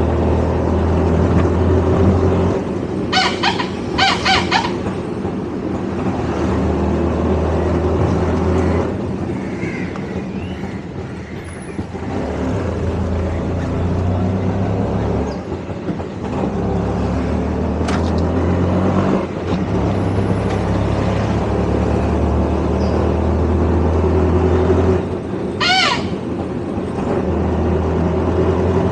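Auto rickshaw engine running steadily under way, its note rising and falling with throttle and gear changes. Short vehicle-horn beeps sound in a cluster about three seconds in and once more near the end.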